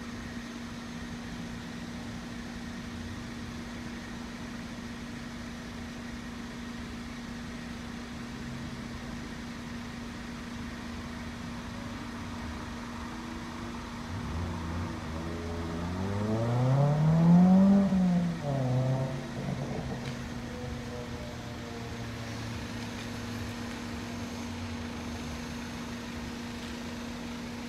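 A motor vehicle engine passes once, roughly halfway through: its pitch climbs steadily as it accelerates, then drops away. A steady hum of a single pitch sits under it throughout.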